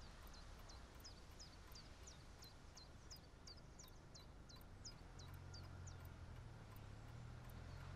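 Faint bird calls: a run of quick, high chirps, each dropping in pitch, repeated about two or three times a second for some six seconds over quiet room tone. A low hum comes in about five seconds in.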